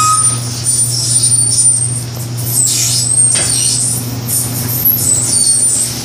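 Hand truck loaded with a washing machine being wheeled and tilted: high thin squeaks and a few clattering knocks over a steady low hum.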